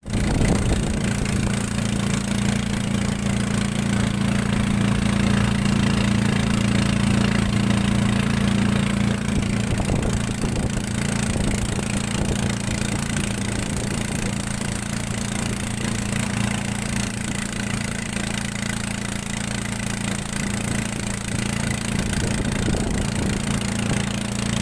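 A small wooden boat's motor running steadily under way, with a rushing hiss of water and air over it.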